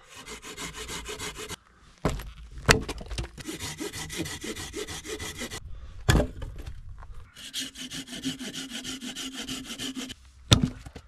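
Knife cutting into a dead branch with quick, even back-and-forth strokes in three long runs, making small sticks, with a few sharp knocks of wood in between.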